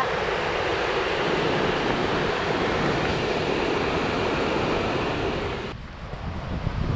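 Steady rush of the Hraunfossar waterfalls pouring into the river below. Nearly six seconds in it cuts off suddenly, leaving uneven low wind buffeting on the microphone.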